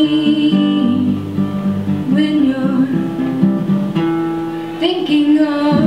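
Acoustic guitar playing live, with a woman's voice singing short phrases over it.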